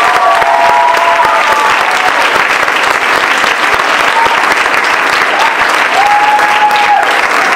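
Audience applauding, loud and steady, with a voice calling out over the clapping near the end.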